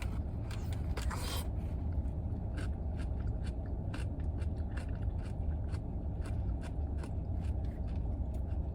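Close-up eating sounds: irregular small clicks and crackles of chewing and handling a sandwich in its wrapper, over the steady low hum of a car idling.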